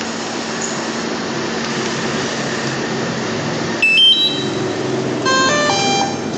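A steady whirring rush from a DJI Mavic 2 Zoom drone being test-run after a landing-leg replacement. A quick rising run of electronic beeps comes about four seconds in, and a second string of stepped beeps follows about a second later.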